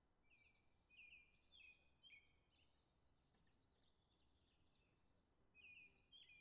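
Near silence, with faint bird chirps in the background: a few short falling notes about a second in and again near the end.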